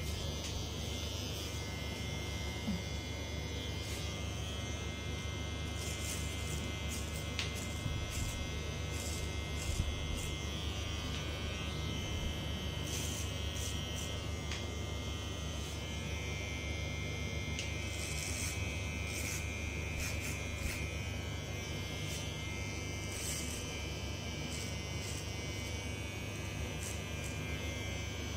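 Electric hair clipper running with a steady buzz, with light ticks over it.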